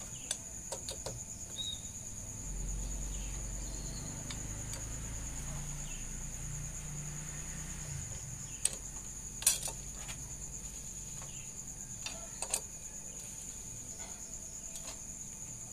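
Scattered light metallic clicks of a T-handle socket wrench turning the clutch cover bolts on a Yamaha Byson engine, with the sharpest click about halfway through. The bolts are being snugged down lightly and evenly. A steady high-pitched whine runs underneath, and a low rumble rises about two and a half seconds in and fades around eight seconds.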